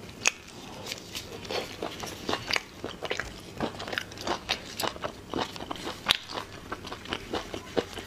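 A person chewing spicy snails close to a clip-on microphone, with many short wet clicks and crackles and a few louder snaps as the snail meat is bitten and the shells are pulled apart by gloved hands.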